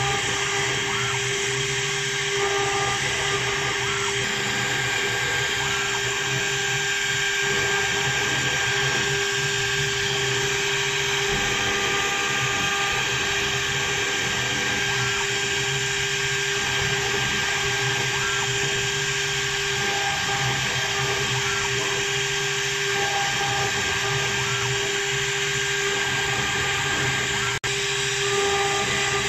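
CNC wood lathe's high-speed carving spindle running with a steady whine as its bit cuts a pattern into a turned wooden baluster, the hiss of the cut riding over it. The sound drops out for an instant near the end.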